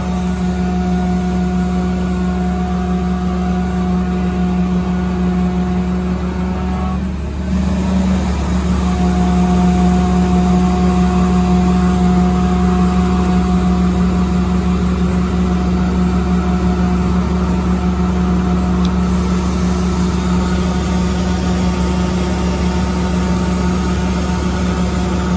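Sullair 750HDTQ-CA3 portable air compressor's Caterpillar diesel engine running steadily with a constant hum. About seven seconds in the sound dips briefly, then carries on a little louder.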